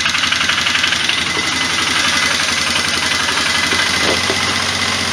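Polaris 500 single-cylinder four-stroke ATV engine idling steadily on full choke while it warms up. With the choke off it dies, which the owner puts down to worn parts leaving too little vacuum to open the CV carburetor.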